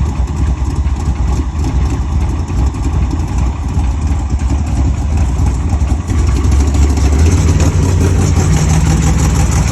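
Car engine running steadily at idle, getting louder and deeper about six seconds in.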